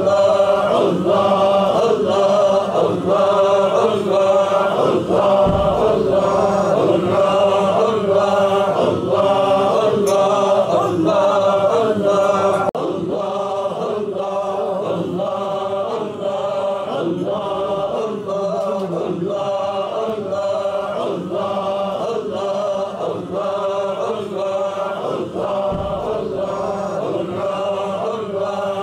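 A group of men chanting "Allah" in unison in Sufi zikr, the same short phrase repeated over and over at a steady pace. The chant drops a little in level about 13 seconds in.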